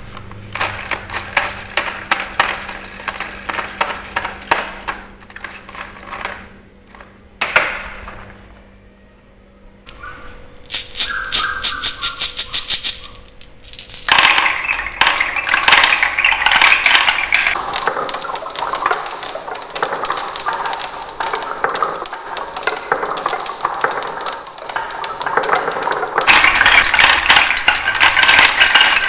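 Marbles rolling and clattering through a wooden marble run, a dense stream of hard clicks and rattles as they strike wooden track pieces. Around the middle there is a run of evenly spaced clicks, and the sound changes abruptly several times.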